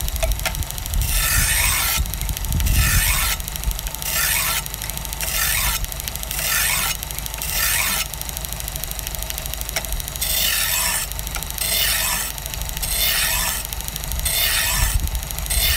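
Kitchen knife blade drawn repeatedly across the running abrasive belt of an AMK-75 belt sharpener: a rasping, hissing pass about every second, with a pause of about two seconds near the middle. A steady low hum of the machine runs underneath.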